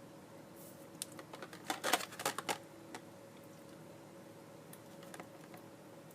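Small plastic and paper packaging being handled: a quick run of sharp clicks and crinkles for about two seconds, starting about a second in, with a few lighter clicks later.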